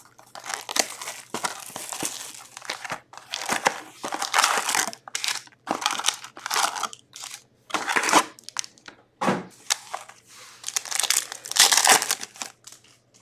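Plastic wrapping and foil packs of Upper Deck 2022-23 Series One retail hockey cards being torn open and crinkled by hand: a run of irregular crackling, rustling bursts, with sharper tearing strokes at intervals.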